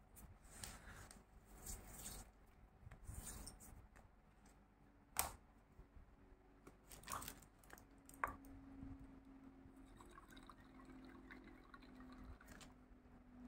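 Faint handling sounds: soft crunching and rustling of crushed naphthalene mothball crystals under fingers in a plastic tub, then a few sharp clicks and taps. A faint steady low hum sets in after about eight seconds.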